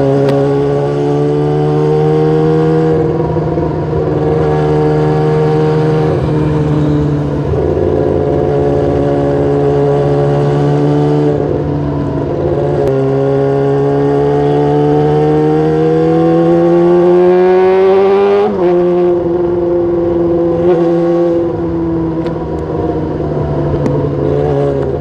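Motorcycle engine running through a very loud aftermarket exhaust, held steady for long stretches. Its pitch climbs slowly for several seconds, then drops sharply about 18 seconds in.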